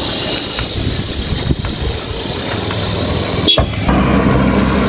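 Wind rushing over the microphone of a camera carried on a moving bicycle, with road traffic around it. A brief dropout comes a little past three seconds, after which a low, steady engine-like hum sets in.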